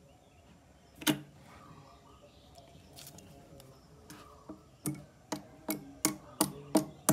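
A small blade-ended hammer striking a teak log, chipping into a rotten hole in the wood: one sharp blow about a second in, then a quick run of blows, about three a second, over the last two seconds.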